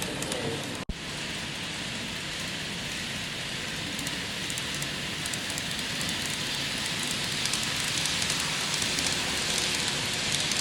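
N gauge model train running on layout track: a steady hissing rumble of wheels on rails and motor, with faint fine clicking. The sound drops out for an instant about a second in.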